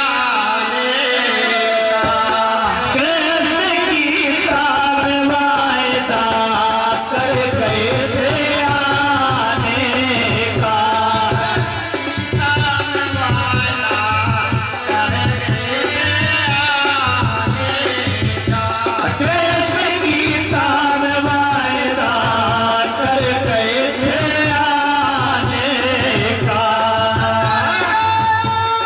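Bhajan music: a wavering melody over a steady hand-drum beat, the drum coming in about two seconds in.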